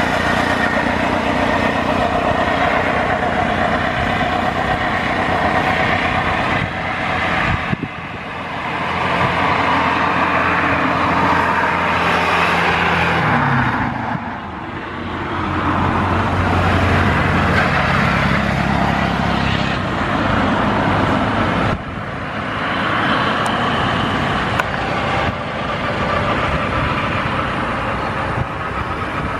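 Boeing 737-800's CFM56-7B jet engines running at low taxi power as the airliner rolls along the runway, a steady rumble with a few short dips in level.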